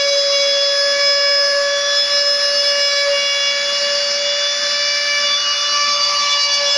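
CNC machine spindle running at constant speed, a steady high-pitched whine with a hiss of cutting over it.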